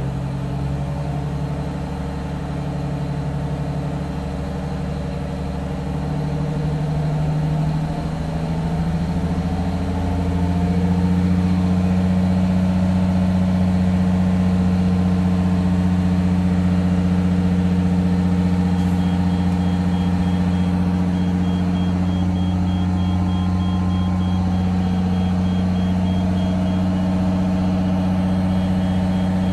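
An old bus's engine idling steadily just after a start-up while it builds air pressure. Its speed and pitch step up between about six and ten seconds in, then hold even.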